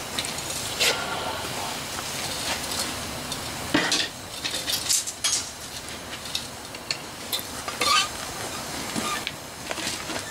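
Steel crucible and lifting tongs clinking and clanking as a crucible of molten brass is handled and tipped for pouring, over the steady rush of a propane-fired melting furnace.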